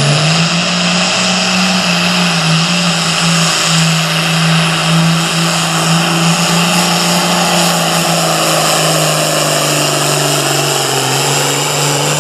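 Super Farm class pulling tractor's diesel engine at full throttle under load during a pull. It holds a loud, steady high-rev note, its pitch dipping slightly a few times.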